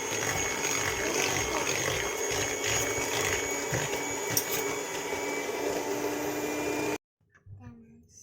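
Electric mixer running steadily, creaming butter and sugar, then switched off so that it cuts out suddenly about seven seconds in.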